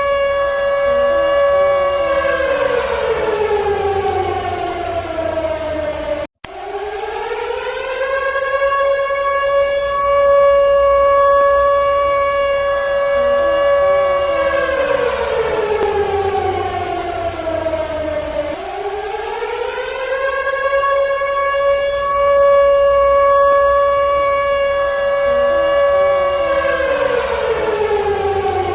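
Civil defense siren wailing: a held tone that slides down in pitch, climbs back up and holds again, in cycles of about twelve seconds. The sound breaks off for a split second about six seconds in.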